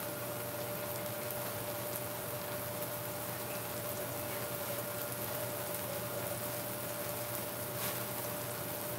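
Chopped tomatoes and garlic frying gently in oil in a pan, a steady soft sizzle with a low steady hum underneath.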